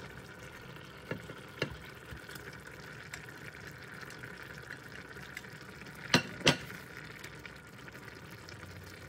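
Cream pasta sauce simmering in a pan with a steady bubbling hiss, while meatballs are slid in off a plate with chopsticks. A few light knocks, and two sharp clinks in quick succession a little after six seconds in as the ceramic plate or chopsticks strike the pan.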